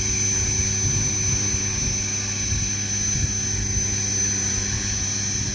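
Radio-controlled model helicopter running on the ground, its main rotor spinning with a steady whine over an uneven low rumble.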